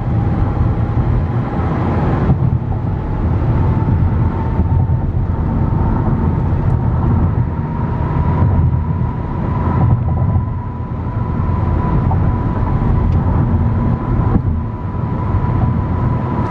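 Car cabin road noise at highway speed: a steady low rumble of tyres and engine heard from inside the moving car, with a thin steady whine running through it.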